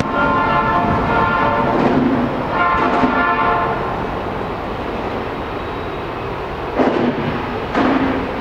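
Diesel locomotive horn sounding a long blast, then a shorter one about two and a half seconds in, over the steady rumble of a train's diesel engines working hard as it approaches. Two brief sharper sounds come near the end.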